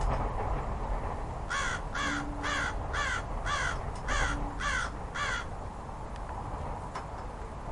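A corvid cawing eight times in a quick, even series, about two calls a second, over a steady low ambient rumble.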